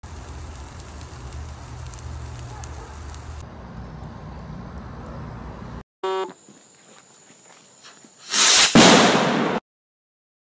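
Brush burning in a steel burn barrel: a steady low rumble with a few faint crackles. After a cut, a short whistle-like tone, then a couple of seconds later a loud explosive burst lasting about a second that cuts off abruptly.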